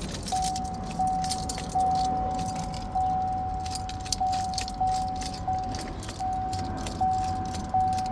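2015 Chevy Suburban's dashboard warning chime dinging over and over at a steady pitch, with light key jingling and clicks, while the key is tried. The engine does not crank at all, which fits the truck's no-crank, no-start fault.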